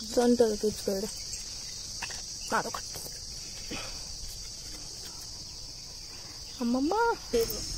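Steady high-pitched drone of insects, crickets or similar, with a few brief snatches of women's voices.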